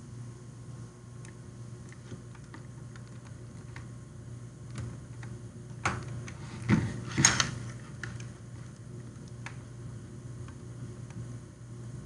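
Faint scattered clicks and taps over a steady low hum, with a few louder knocks and a short rustle about six to seven seconds in.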